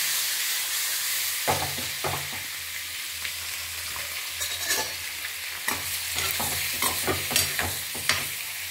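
Boiled eggs frying in hot oil in a kadai, sizzling steadily, with repeated light knocks and scrapes of a spoon against the pan as the eggs are stirred and turned.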